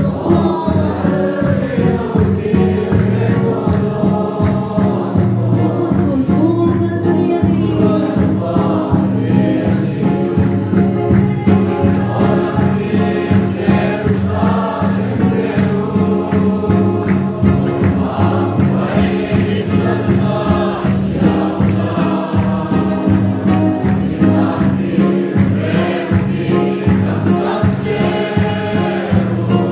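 Church congregation singing a hymn together, with a steady beat and a low accompaniment underneath.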